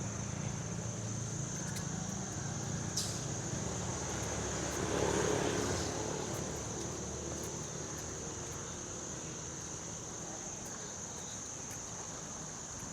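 Road traffic: the engine rumble of a motor vehicle passing close by, swelling to its loudest about five seconds in and then fading to a steady low background hum.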